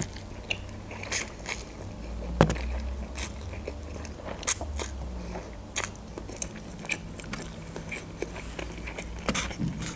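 Close-up eating sounds of instant noodles: a slurp as a forkful is drawn in, then chewing, with many scattered sharp wet mouth clicks.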